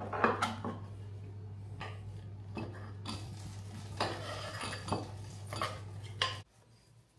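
Knocks and clatter of a wooden cutting board and a knife as sliced cucumber is pushed off the board into a ceramic bowl, with the loudest knock near the start and a stretch of scraping about four seconds in. A low steady hum underneath cuts off shortly before the end.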